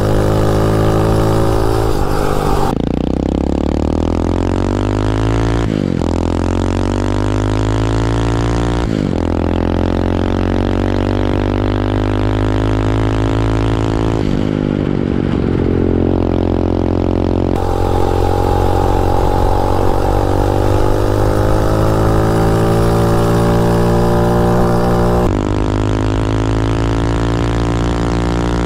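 A 250cc dirt bike engine in a mini bike, running hard under acceleration. Its pitch climbs steadily and then drops back suddenly several times, as the bike shifts up through the gears.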